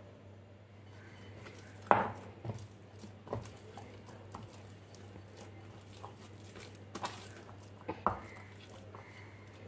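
Hands kneading and folding oiled maida dough in a glass bowl, with a few sharp knocks from the bowl. The loudest knock comes about two seconds in, and a few more come near the end.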